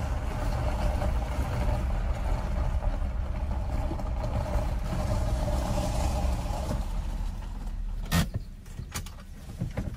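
Car driving: a steady low rumble of engine and road noise that dies down about eight seconds in, followed by a sharp knock and a few lighter clicks.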